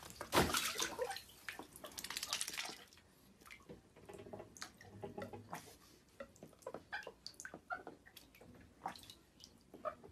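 A white duck splashing in a bathtub of shallow water: heavy splashing for the first three seconds, then lighter, scattered splashes and drips.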